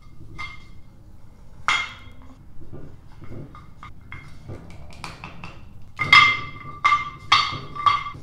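Small clicks and knocks of a wooden block handle, its rope cord and pliers against an upturned terra cotta pot. Four sharper knocks near the end ring on with a clear tone.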